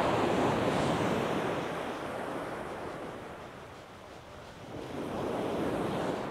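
Sea waves breaking and washing up a shingle beach: a surge near the start that slowly ebbs, then a second wave building and breaking about five seconds in.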